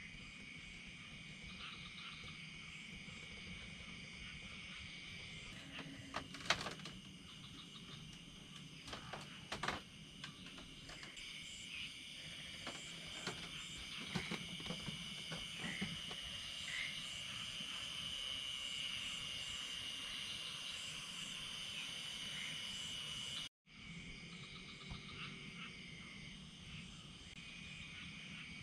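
Evening chorus of insects and frogs around rice fields: steady high-pitched chirring, with a few scattered clicks and knocks about a quarter to halfway through. The sound drops out for a moment near the end.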